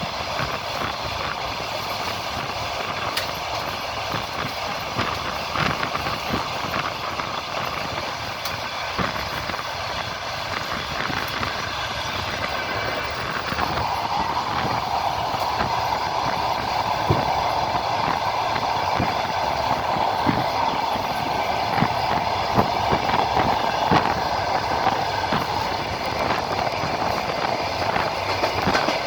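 Passenger train wheels clacking over the rail joints, heard from a coach of the moving train, over a steady running rumble. About halfway through, a louder, higher rushing sound joins in and holds.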